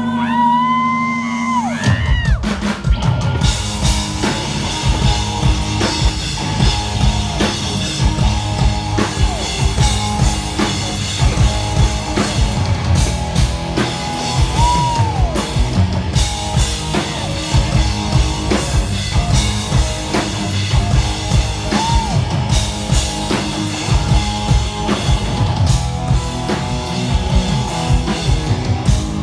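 Live rock band playing through a festival PA: a lone electric guitar line with bent notes for about two seconds, then drums and bass come in and the full band drives on with a steady beat.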